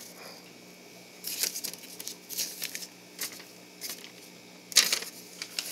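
Intermittent small handling noises: brief rustles and clicks a few times, the loudest near the end, over a faint steady hum.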